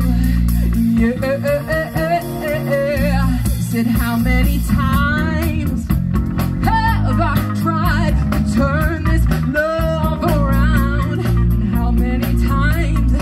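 Live band music: a woman singing a wavering melody into a microphone over electric guitar, bass guitar and a drum kit, amplified through a PA system.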